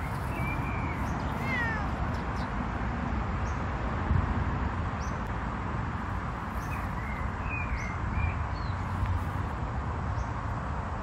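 Savannah cat giving short, high, chirping meows: a few near the start and another group about seven to eight seconds in, over a steady low rumble.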